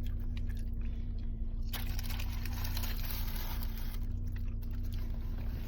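Steady low hum of a car engine idling, heard inside the cabin, with faint crunching from chewing crispy fried chicken.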